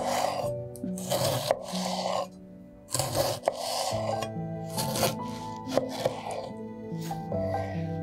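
Soft background music over kitchen food-preparation sounds: a series of short scraping, rubbing strokes, with a few sharp clicks among them.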